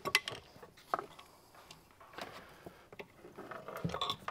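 Scattered light knocks and clicks as the gyro-stabilised camera mount is handled and set down onto its platform on the helicopter seat, most of them near the start, about a second in, about two seconds in and near the end.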